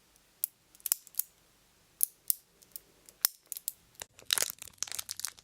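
Scattered sharp clicks and soft crinkling very close to the microphone, in the manner of an ASMR recording, with a denser burst of rustling about four seconds in.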